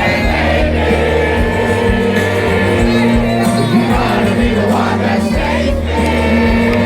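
Live rock band playing loud, with bass, drums, sustained chords and singing, and the crowd audible along with it.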